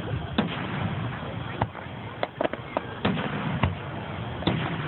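Aerial firework shells bursting: a series of sharp bangs, about nine in all, with several coming in quick succession in the middle.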